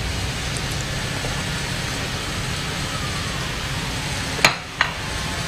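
Steady background hiss from the studio kitchen, broken about four and a half seconds in by two sharp clicks from kitchen utensils, a third of a second apart.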